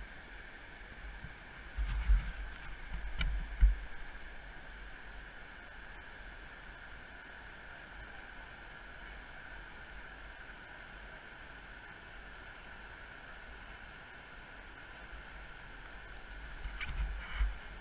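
Steady rushing of a fast-flowing river. Wind buffets the microphone in low gusts about two seconds in and again near the end.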